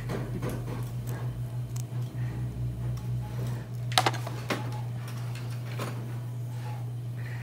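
Small clicks and taps of metal dissecting tools and gloved hands working in a fish's head, with a sharper clack about four seconds in as the knife is swapped for forceps on the bench. A steady low hum runs underneath.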